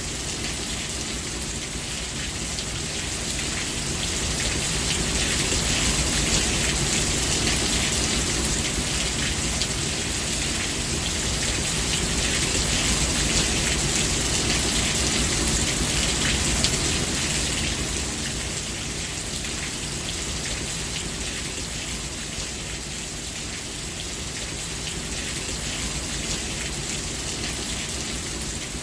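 Steady rainfall, a dense even hiss of drops. It swells heavier a few seconds in and eases off again past the middle.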